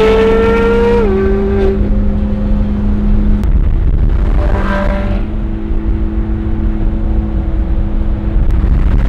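Ferrari V8 engine heard from inside the cabin at highway speed: the engine note climbs, drops sharply about a second in at a gear change, then settles into a steady drone over low road rumble.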